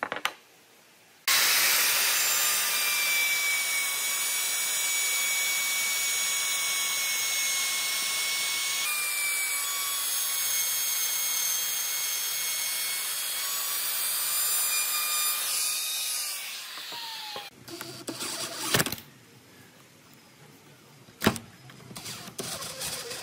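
Handheld trim router running at speed with a steady high whine as it cuts shallow hinge recesses into the edge of a wooden board, then winding down with a falling pitch and stopping. Afterwards, scattered light clicks and knocks from handling the hinge and driver bit.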